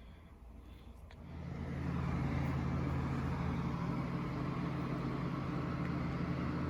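A switch clicks about a second in, then a bathroom exhaust fan starts up, building over about a second to a steady motor hum with rushing air.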